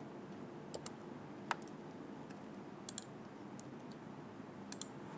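Computer keyboard and mouse clicks: scattered sharp clicks, several in quick pairs, over a faint steady hum.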